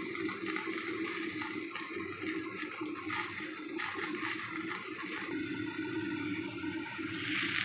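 A steady low hum of kitchen background noise; about seven seconds in, oil with chopped scallion, garlic and chilli starts sizzling in a wok.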